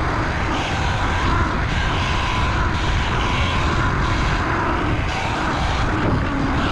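Falcon Pro 79 electric dirt bike being ridden: wind buffeting the microphone, with a steady whine from the bike's electric motor.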